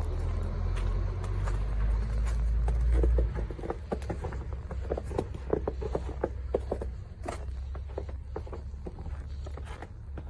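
A low rumble for the first three seconds, then a steady run of footsteps on snowy, slushy ground, a few steps a second.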